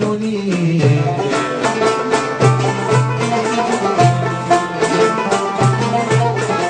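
Instrumental passage of Arabic ensemble music: oud and banjos plucking quick runs of notes over repeating low notes.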